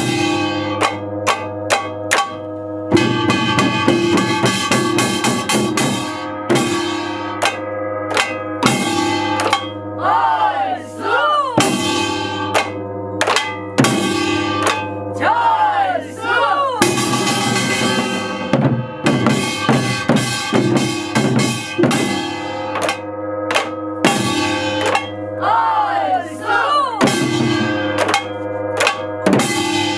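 Music with a drum kit: snare and cymbal hits over held tones, with pitch sweeps rising and falling again several times.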